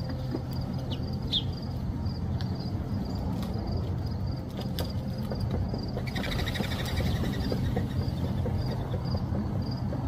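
Small birds chirping around seed feeders: a few short high chirps early, a faint high note repeating two or three times a second, and a buzzy trill about six seconds in, over a steady low hum.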